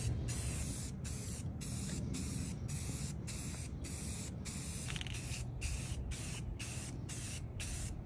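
Aerosol spray paint can hissing in a run of short sprays, the nozzle let go for a moment about twice a second, as a light first coat goes on.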